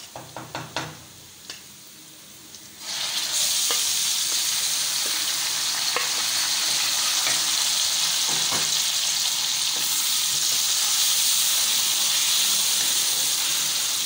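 Marinated chicken frying in hot oil with browned onions in a karahi, stirred with a wooden spatula. A few light knocks come first, then a loud, steady sizzle starts suddenly about three seconds in and keeps going.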